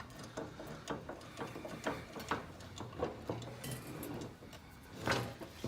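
Irregular light metallic clicks and scrapes as an old adjustable wrench is worked by hand, its threads and slide seized with rust so they barely give. A louder knock comes about five seconds in.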